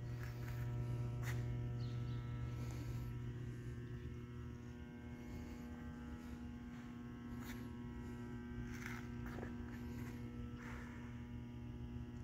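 Steady low electrical mains hum with many overtones, and a few faint knocks here and there.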